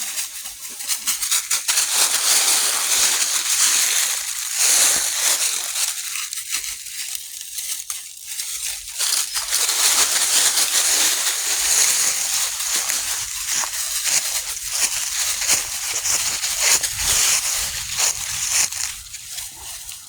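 Dry leaves rustling and crunching under puppies scrambling and playing in them, a continuous crackling that rises and falls in loudness.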